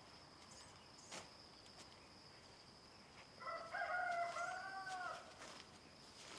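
A rooster crowing once, a drawn-out call of about two seconds starting around the middle, over a steady high insect trill.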